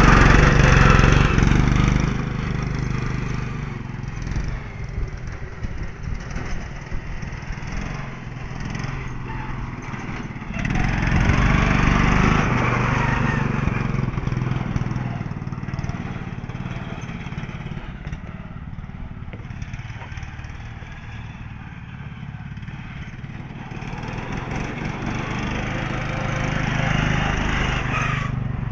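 Riding lawnmower engine running steadily, growing louder and fainter by turns: loudest at the start, again about eleven seconds in and near the end.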